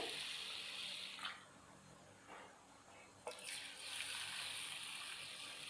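Water being poured into bowls of rice and urad dal to soak them: a pour lasting about a second at the start, then a second, longer pour from about three seconds in.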